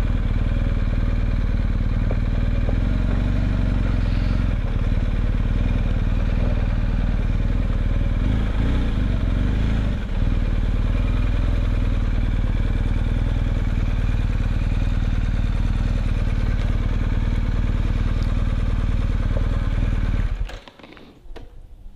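BMW R 1250 GS Adventure's boxer-twin engine running as the motorcycle rolls slowly, a steady low rumble with some wind on the microphone. The sound stops abruptly near the end, leaving only a few faint clicks.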